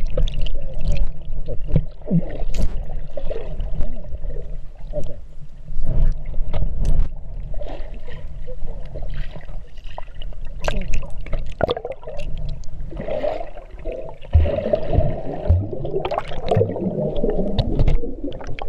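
Water churning and splashing, heard through an underwater camera: swimming strokes at the surface stir up bubbles over a steady low rumble, with scattered sharp clicks. The churning grows busier in the last few seconds.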